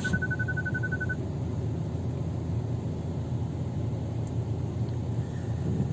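Steady low rumble inside a car's cabin as the car sits in neutral on an automatic car-wash conveyor rail, with a quick run of evenly spaced high beeps in the first second, like a parking-sensor warning.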